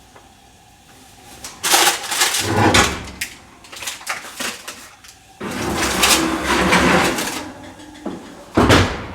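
Three bursts of metal scraping and clattering as a covered cast iron Dutch oven is handled into an oven, the last one short and sharp like the oven door shutting.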